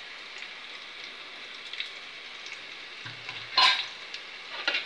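Sliced onions with mint and coriander leaves frying in oil in an aluminium pot, sizzling steadily. A sharp metal clank of a utensil sounds about three-quarters of the way through, with a lighter clatter near the end.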